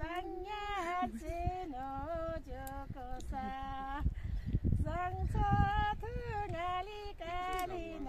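Women's voices singing a Kinnauri folk song unaccompanied, in long-held, gliding notes. There is a short break about four seconds in, with a low rumble on the microphone.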